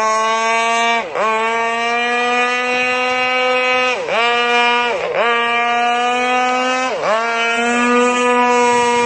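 Small two-stroke brush-cutter engine of a radio-controlled longtail boat running at high revs, its pitch dropping briefly and climbing back about four times as the throttle is eased off and reopened.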